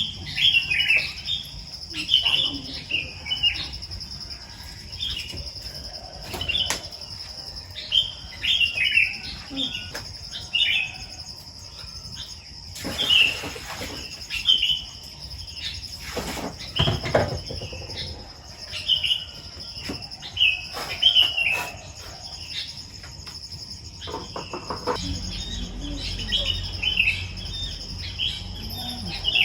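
Small birds chirping: short high calls repeated over and over, over a steady high insect-like whine. A couple of brief rustling noises come in around the middle.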